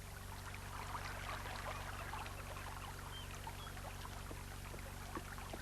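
Babbling stream ambience in a cartoon soundtrack, a steady trickling flow of water, with a couple of faint short chirps about three seconds in.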